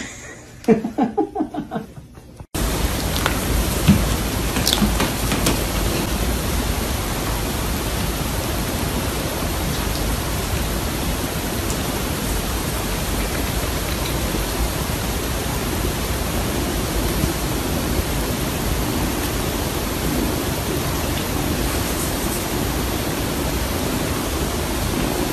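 Loud, steady hiss-like noise with no clear pattern, starting abruptly about two and a half seconds in after a few words of speech.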